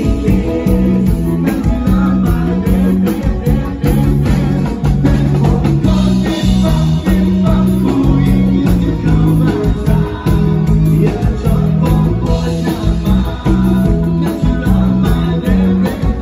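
Live band music at a concert, recorded through a phone's microphone: loud and bass-heavy, with guitar, a steady drum beat and singing.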